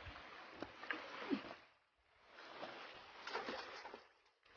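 Shallow rocky stream running, with a few small splashes and knocks as someone wades and handles stones in the water. The sound cuts out briefly twice.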